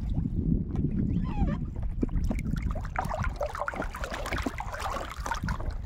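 Water splashing and sloshing around a raft as it is poled or paddled across a pond, under a steady low rumble. The splashing is busiest from about three seconds in.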